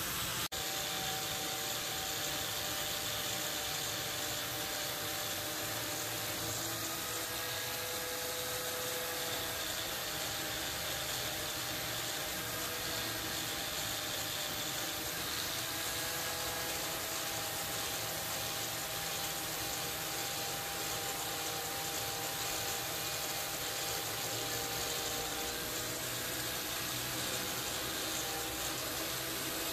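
Handheld angle grinder running under load, its abrasive wheel grinding the steel of a file-made knife blade and throwing sparks. It makes a steady gritty rush under a motor whine that wavers slightly in pitch.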